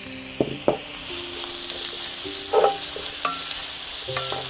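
Sliced carrot, shiitake and wood ear fungus sizzling in hot sesame oil in a frying pan, stirred with a wooden spatula that knocks and scrapes against the pan several times.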